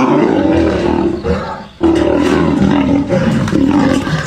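Tiger roaring: two long, loud roars, the second beginning just under two seconds in.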